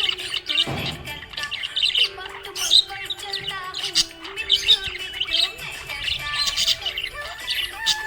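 Budgies chirping and squawking in a constant rapid chatter of short calls, over background music with a slow, stepping melody.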